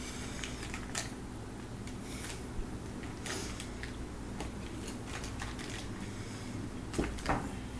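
Butter wrappers crinkling and rustling as sticks of butter are unwrapped over a steel mixing bowl, with a few light knocks, the loudest two near the end.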